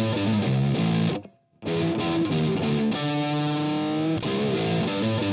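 Background instrumental music with distorted electric guitar. It cuts out briefly about a second in, then resumes.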